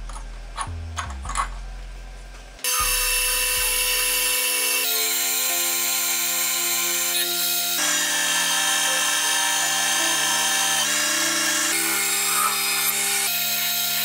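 A few light metallic clicks, then about three seconds in a metal lathe starts cutting a metal part: a loud, steady machining whine and cutting noise, over background music.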